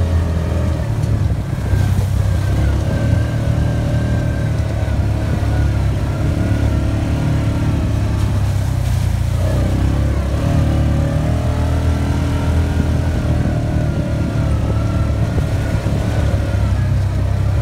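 Side-by-side utility vehicle's engine running under way on a rough dirt trail, heard from inside the cab. It is a steady low drone whose pitch wavers with the throttle, dipping briefly and picking up again about halfway through.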